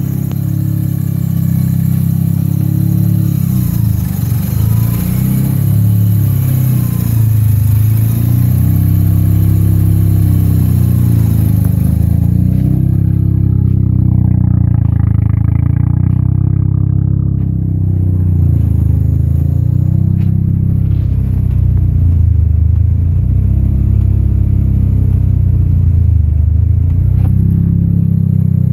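A 1993 Mazda RX-7's twin-rotor rotary engine, converted to a single turbo, idling steadily while its idle is being set on an aftermarket Adaptronic ECU; the idle pitch wavers a little up and down. A high hiss stops about twelve seconds in.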